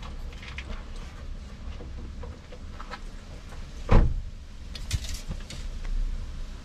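Handling noises at a wooden work table while a small tube is squeezed over a line-wrapped branch lure: light clicks and rustles, with one loud thump about four seconds in, over a low steady rumble.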